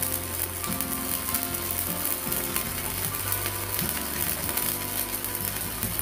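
Stick (MMA) welding arc crackling and sizzling steadily as a 4.0 mm electrode burns, run from a small IGBT inverter welder. Background music plays underneath.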